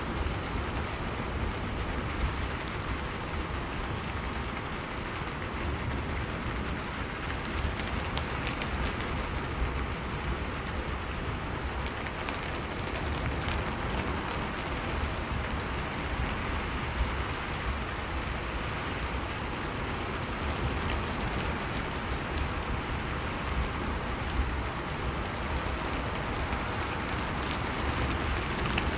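Steady rain falling, an even hiss with scattered drop ticks and a low rumble underneath.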